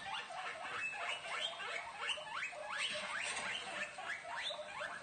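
Guinea pigs squeaking: a rapid, continuous run of short, rising squeaks, about four a second, made while they are eating.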